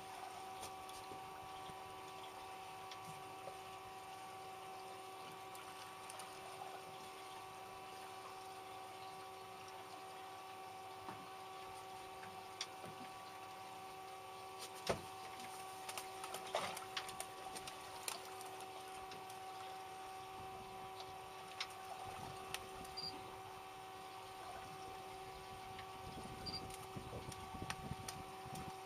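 A small motor humming steadily at a fixed pitch, with scattered clicks and knocks, the loudest about halfway through.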